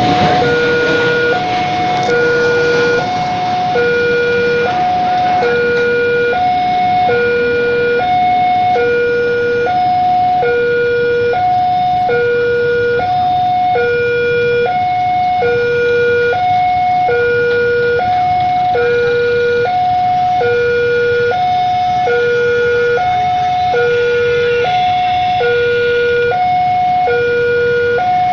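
Railway level-crossing warning alarm sounding a steady electronic two-tone signal, a lower and a higher tone alternating about once a second, warning that a train is approaching the lowered barriers.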